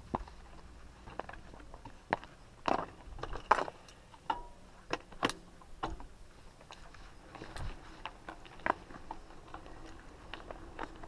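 Scattered light clicks, knocks and rattles of a mountain bike being picked up and handled, coming thickest in the first half.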